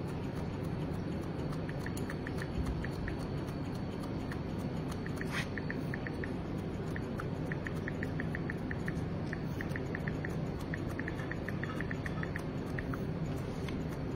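Barber's scissors snipping short hair at the nape, a run of quick small clicks coming in bursts, over a steady low room hum.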